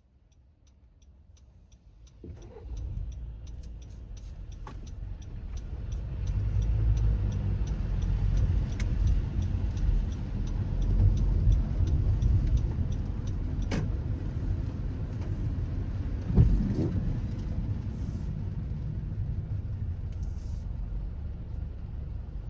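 Car driving in the rain: a low road rumble with tyre noise that grows louder over the first several seconds, then holds steady. Light, rapid ticking runs through the first few seconds, and there are two sharp knocks later on.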